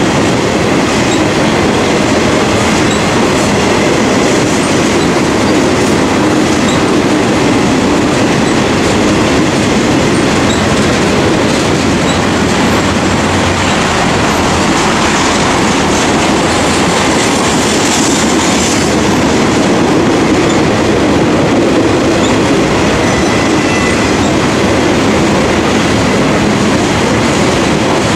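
Two freight trains' cars passing at once, an intermodal train of trailers in well cars and a train of covered grain hoppers, in a steady loud rumble with wheels clacking over the rail joints and a faint high wheel squeal now and then.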